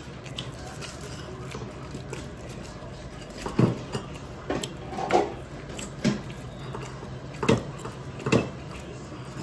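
Dishes and cutlery clinking and knocking: about seven short, sharp knocks and clinks, starting about three and a half seconds in.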